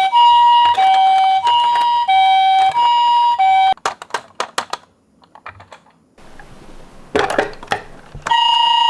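Japanese ambulance siren sounding its two-tone 'pee-po' call, alternating high and low notes about every half second, until it cuts off a little under four seconds in. A run of light clicks follows, then a louder clatter, and the siren starts again just before the end.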